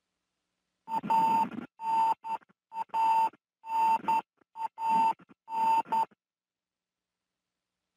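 Electronic beep tone sounding six times, about once a second, each beep carrying a burst of hiss with it.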